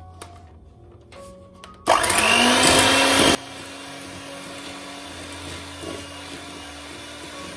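Electric hand mixer switched on about two seconds in, its motor spinning up with a rising whine as the beaters cream butter and powdered sugar in a stainless-steel bowl. After about a second and a half it drops suddenly to a quieter, steady running hum.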